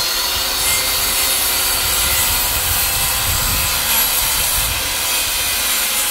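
Handheld power saw cutting through a wooden block, running at a steady pitch and stopping abruptly at the end.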